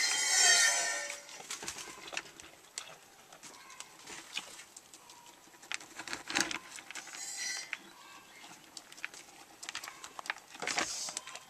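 A goat bleats once, about a second long. Then come scattered light knocks and clicks as she is milked by hand.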